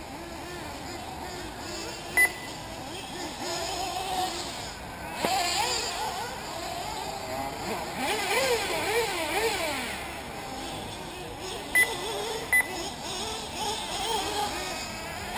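Several 1/8-scale nitro RC buggy engines whining high, rising and falling in pitch as they rev and back off around the track. Three short, sharp high beeps stand out, one about two seconds in and two close together near the end.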